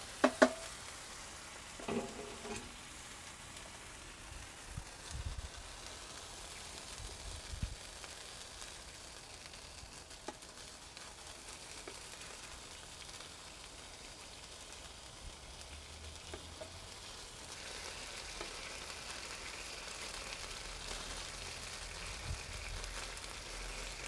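Birria tacos frying in beef fat and consommé on the flat top of a Cadac Carri Chef gas griddle: a steady sizzle that grows a little louder about two-thirds of the way in. A few sharp taps and scrapes of a spatula against the plate come as the tortillas are folded over.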